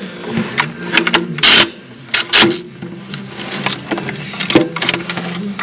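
Hand ratchet clicking and clacking in irregular runs as lug bolts are run in and snugged onto a wheel hub, with a few louder knocks among the clicks.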